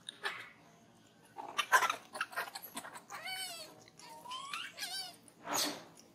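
Macaque monkeys calling: a few short pitched squeals that arch up and down or rise, between short noisy bursts.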